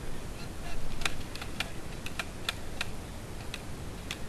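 Paintball markers firing: a string of sharp, short pops, some about a third of a second apart, over steady outdoor noise.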